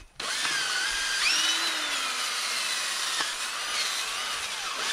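Power tool spinning a wire brush wheel against a worn ATV front brake drum hub, scrubbing off grime and smoothing its ridges. It starts abruptly, and the motor's whine rises and dips as it runs.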